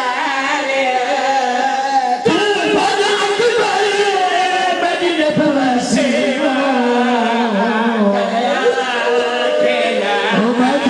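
Men's voices chanting a Shia mourning lament together, a zakir's sung masaib recitation with others joining in, in long wavering sung lines without a break.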